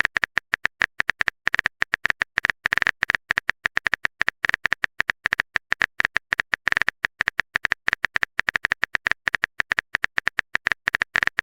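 Rapid, unevenly spaced clicks of a keyboard-typing sound effect, about eight to ten a second with brief pauses, as a chat message is typed out.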